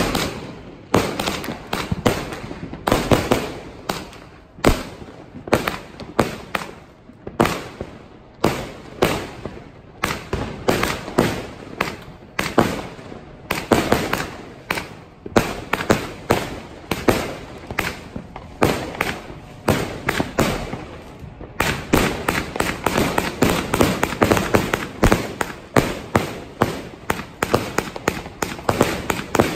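A 260-shot fan cake firework firing its shots, each a sharp bang, about one or two a second. About two-thirds of the way through, the shots speed up into a fast, dense volley.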